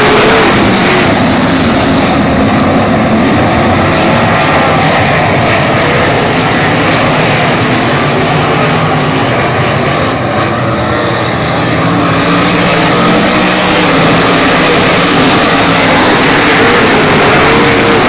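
A pack of 305 sprint cars' small-block V8 engines racing at full throttle on a dirt oval, a loud, continuous mass of engine noise rising and falling in pitch. It eases a little about ten seconds in as the field runs down the far straight, then builds again as the cars come back past.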